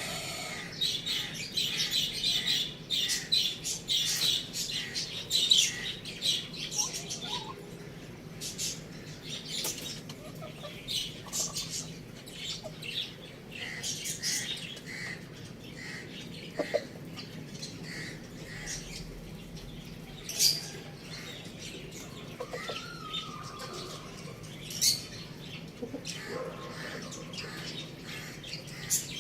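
Small birds chirping: a dense run of short, high chirps for the first several seconds, then scattered chirps.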